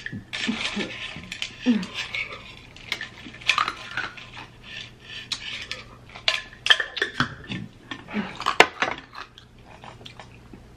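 Metal straw clinking and scraping against a stainless steel insulated tumbler and its lid: a run of irregular sharp clinks, the loudest near the end.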